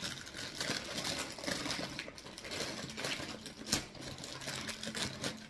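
Crinkling and rustling of a cereal box's plastic inner bag being pulled open by hand, with one sharp snap about three and a half seconds in.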